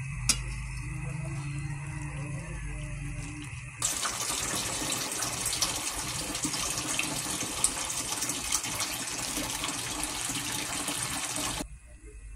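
Shrimp sizzling in sauce in a hot pan: a dense, steady hiss that starts suddenly about four seconds in and cuts off near the end. Before it there is a low hum and a single sharp knock just after the start.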